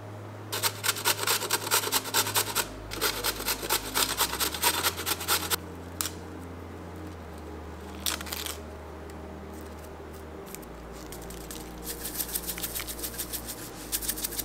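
Several bouts of fast, scratchy rasping from food being worked by hand at the counter, with a low hum underneath.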